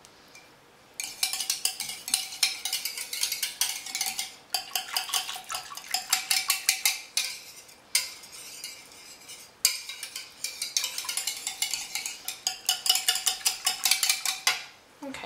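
A utensil whisking a thin tomato sauce in a bowl: quick, clinking strokes against the bowl, several a second, broken by a few short pauses.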